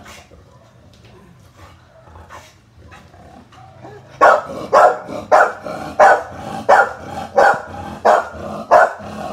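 An American Bully dog barking: after about four quieter seconds, a steady run of loud barks, about three every two seconds.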